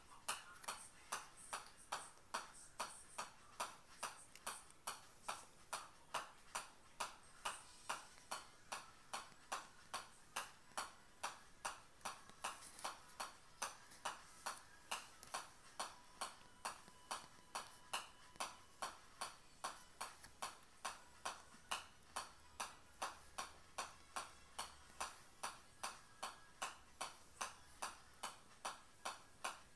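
A golf ball bounced continuously on the steel face of a pitching wedge: an unbroken, even run of sharp pings, a little more than two hits a second.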